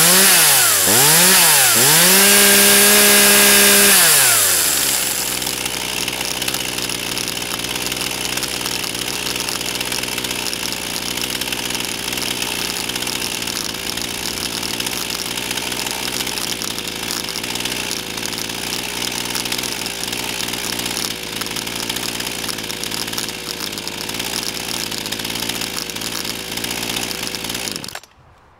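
Zenoah G3500P two-stroke chainsaw revved up and down a few times and held at full throttle for about two seconds, then dropped back to a steady idle. It cuts out suddenly near the end.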